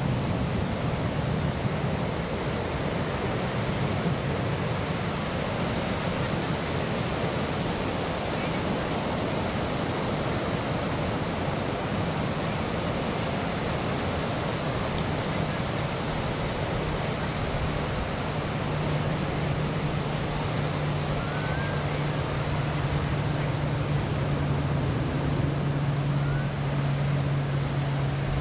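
Distant jet noise from a formation of F-16 Fighting Falcons in flight: a steady rushing sound, with a low steady drone growing stronger in the second half.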